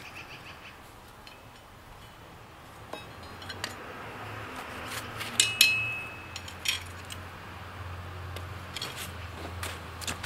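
Hammer working hot rebar on an anvil: scattered light taps and knocks, with a harder blow about five and a half seconds in that makes the anvil ring briefly. A low steady hum runs beneath the second half.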